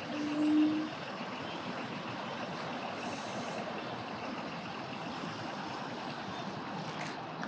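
Steady hum of vehicle traffic, with one short, low-pitched beep in the first second.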